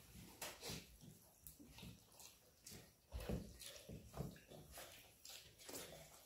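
Faint eating sounds of several people eating rice and curry with their hands from steel plates: scattered small smacks and clicks of fingers and mouths, with a few soft knocks about three and four seconds in.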